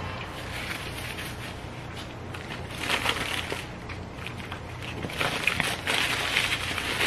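Eating a fried chicken sandwich: close chewing mixed with the crinkling of its paper wrapper. The crackly rustles come in short spells, about three seconds in and again from about five seconds on.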